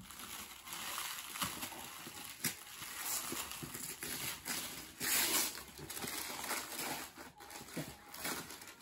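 Rustling and crinkling of packaging: a thin clear plastic tray being shaken and paper wrapping being pulled off a box, with a louder burst of crinkling about five seconds in.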